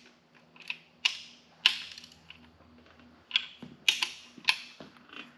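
Click-type torque wrench on main bearing cap bolts, set to 90 ft-lb, giving a series of sharp clicks as it breaks over at the set torque. The loudest clicks come in pairs about half a second apart, the 'double click' used to confirm the bolt is at spec.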